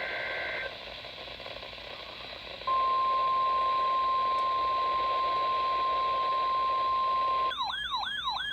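Emergency Alert System broadcast tones: the end of a brief warbling SAME data burst, then a single steady electronic alert tone held for about five seconds, which is the loudest part. Near the end it gives way to a fast wailing siren tone that rises and falls about two to three times a second.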